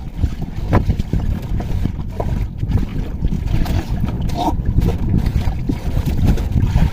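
Wind buffeting the microphone outdoors: a rough, uneven low rumble with no steady pitch.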